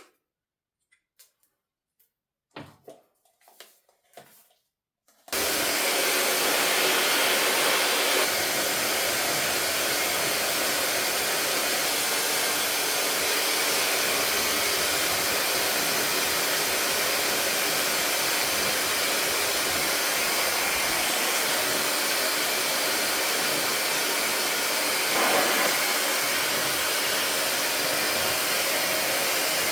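A few faint knocks, then an ionic hair dryer switched on about five seconds in and blowing steadily, its rushing tone shifting slightly about eight seconds in.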